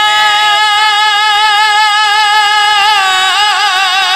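A man singing a naat solo into a microphone and holding one long note. The pitch stays level for almost three seconds and then breaks into wavering ornamental turns.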